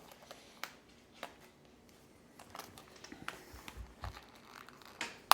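Scattered small clicks and crinkles of a plastic toy packet being cut and worked open, with a sharp click near the end.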